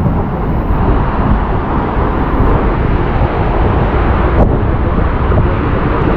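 A 60-metre waterfall rushing steadily close by, a loud, even rumble of falling water, with a faint click about four and a half seconds in.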